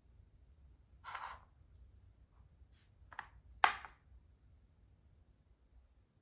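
A makruk (Thai chess) piece being moved on the board: a short swish about a second in, then a light tap and a sharp click as the piece is set down on its new square about three and a half seconds in.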